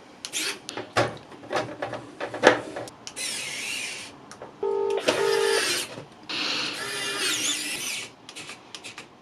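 Knocks and clicks of computer parts being handled and fitted into a PC case, then a few seconds of rustling, with a short buzzing whir about five seconds in.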